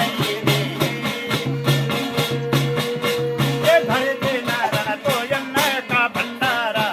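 Jagar ritual music: a small hand drum and a brass plate (thali) beaten in a fast, steady rhythm, with men singing the chant over it. A held note sounds under the singing for the first four seconds or so.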